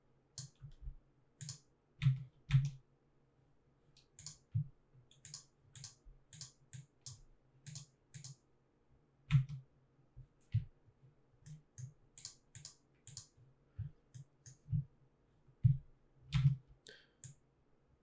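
Computer mouse and keyboard clicks, irregular and sharp, about two a second, a few landing heavier than the rest.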